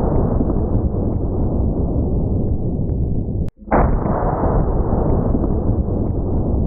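A 4 bore falling-block rifle's shot, slowed down into a deep, drawn-out boom that rumbles on for seconds. It breaks off abruptly about three and a half seconds in, and a second slowed boom starts straight after.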